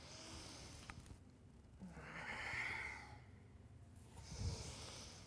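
Breathing through the nose in time with a yoga movement: three audible breaths, each about a second long, paced with rising into a stretch and folding forward. A soft low thud comes near the end.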